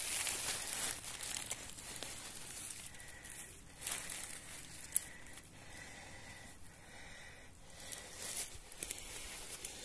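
Irregular rustling and crackling of dry leaf litter being disturbed, with a single sharp click about five seconds in.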